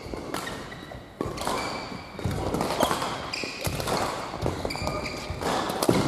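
Badminton play on an indoor court: rackets striking the shuttlecock and feet landing and squeaking on the court floor, a string of short sharp knocks and brief high squeaks in a large hall.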